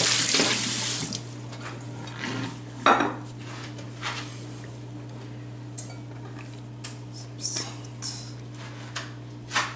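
Tap water running into a stainless steel sink and cutting off about a second in, then scattered clinks and knocks of a glass bowl and utensils against the steel sink and counter, over a steady low hum.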